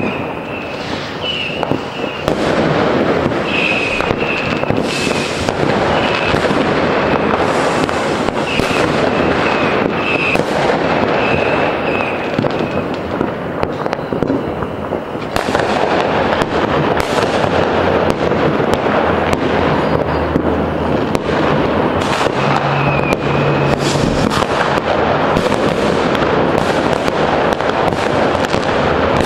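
Many fireworks going off at once all around: a continuous din of firecracker bangs and rocket bursts, with short high whistles now and then.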